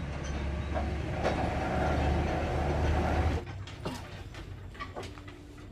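Sawmill machinery running with a steady low hum and rattle that cuts off suddenly about three and a half seconds in, followed by a few scattered knocks.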